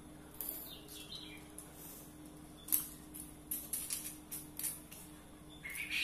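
Light metallic clicks and rattles from a small panel of welded wire mesh and a tape measure being handled, in a quick run of short clicks through the middle, with a few short bird chirps near the start and end over a faint steady hum.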